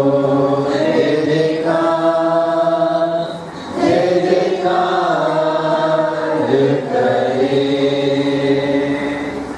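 Congregation singing a Hindi worship hymn slowly, holding long notes over a steady low note, and fading out near the end.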